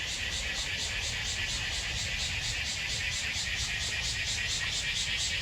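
Cicadas singing in chorus: a loud, high buzzing that pulses evenly about four or five times a second, over a low rumble.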